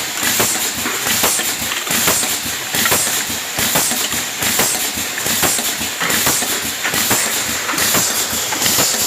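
Aerosol filling machine running, with repeated mechanical clacks over a steady high hiss.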